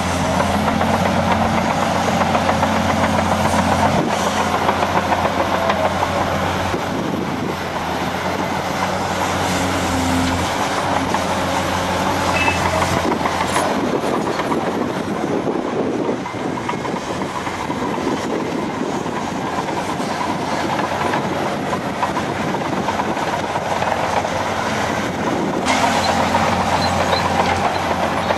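Caterpillar 385C excavator working: its diesel engine runs under load as it digs and swings, with a rumbling clatter throughout. Near the end, loose earth pours from the bucket into a Caterpillar 769D dump truck's bed.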